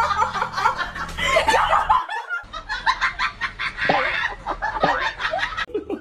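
People laughing: a run of rapid snickers and chuckles, breaking off briefly near the end.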